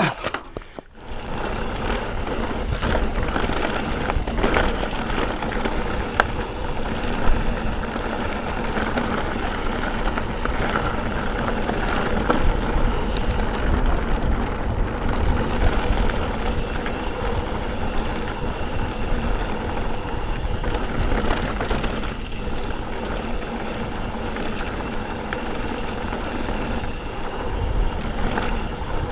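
Mountain bike riding over a rough trail: steady tyre noise and rumble with scattered clicks and rattles from the bike, starting about a second in.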